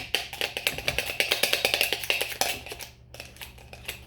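Sticky slime being stirred briskly with a utensil in a container: a fast run of clicks and taps, with a short pause about three seconds in.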